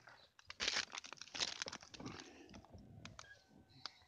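Rustling and scraping against the phone's microphone, with scattered sharp clicks and knocks, as the handheld phone is moved about and rubs against clothing. Busiest in the first half, thinning to a few faint ticks near the end.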